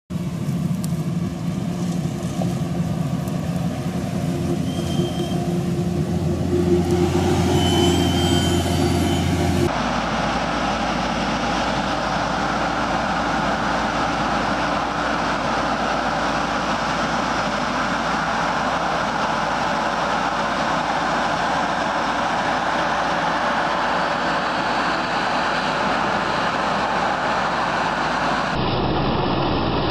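Heavy farm machinery engines running steadily, the sound changing abruptly at cuts about ten seconds in and near the end.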